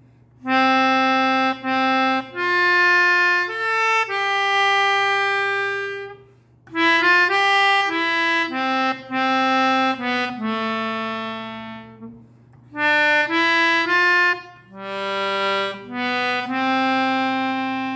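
A slow single-line melody played on a reed wind instrument, one held note at a time, in phrases with short breaths between them, over a faint steady hum.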